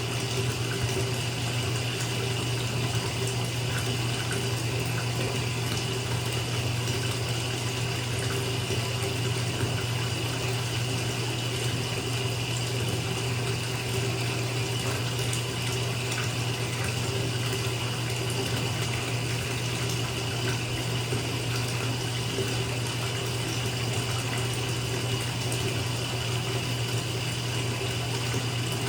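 Water running steadily from a bathtub tap into a filling tub, a constant rushing splash with a low hum beneath it.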